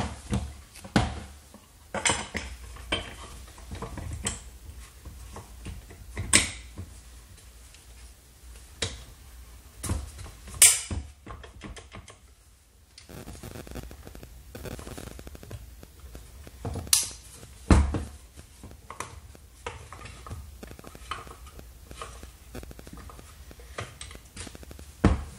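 Plastic wheel guard and parts of a Milwaukee M18 FUEL cordless angle grinder being handled and fitted to the spindle collar: scattered sharp clicks, knocks and light rattles of hard plastic and metal, some set down on a wooden workbench.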